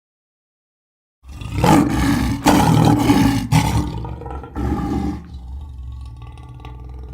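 Lion roaring: after about a second of silence, a loud rough roar in several surges lasting about four seconds, then quieter low grunting that fades toward the end.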